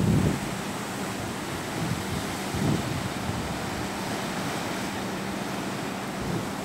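Ocean surf washing steadily, with wind buffeting the microphone in gusts just after the start and again about two and a half seconds in.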